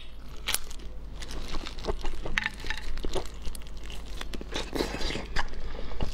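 Close-up eating sounds of wet bites and chewing of raw spiny lobster meat. Scattered short crackles and the crinkle of disposable plastic gloves handling the food are heard throughout.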